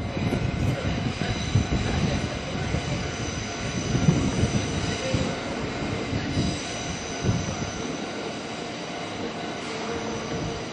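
A train on the Kintetsu Nara Line running over a level crossing, its wheels rumbling and knocking on the rails, with the crossing's warning bell sounding steady high tones throughout. The rumble fades about eight seconds in.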